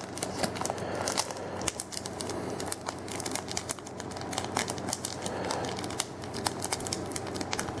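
Foil booster-pack wrapper crinkling and crackling as it is worked open by hand, a steady run of small crackles.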